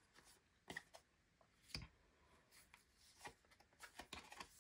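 Faint handling of tarot cards: a few scattered soft ticks and slides as cards are drawn from the deck and laid down, the sharpest about two seconds in.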